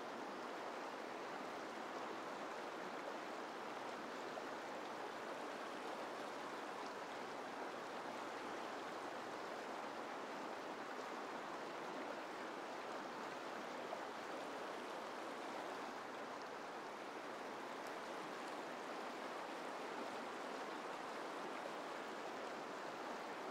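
River water rushing over rocks in rapids, a steady even rush.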